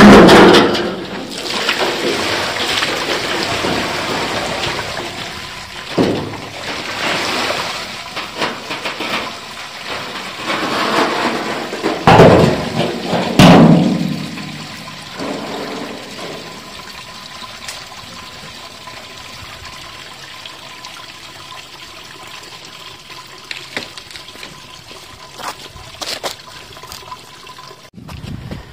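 Water gushing out of a tipped galvanized steel willow-soaking tub and splashing onto paving stones. The gush is loudest at first and fades to a steady trickle running into a floor drain, with two thumps about halfway through.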